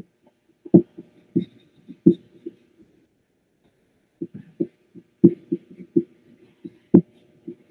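Irregular soft knocks and thumps, several a second, in two spells with a pause of about a second and a half between them.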